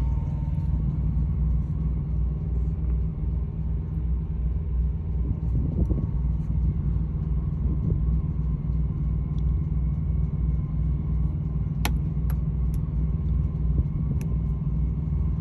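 Semi truck's diesel engine idling steadily, with a few light clicks about twelve and fourteen seconds in.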